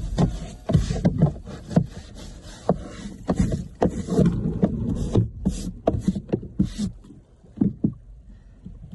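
Scrubbing and scraping on a rowing boat's deck during a bird-droppings clean-up: irregular rubbing strokes and light knocks, with a few short hissy brush-like strokes a little past halfway.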